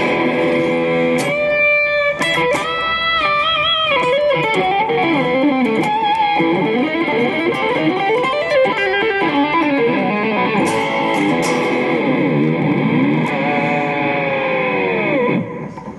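Ibanez GRG120QASP electric guitar being played: held notes stepping up in pitch at first, then bends and whammy-bar dive bombs on its floating knife-edge tremolo bridge, with the pitch swooping up and down and sinking in long falls near the end.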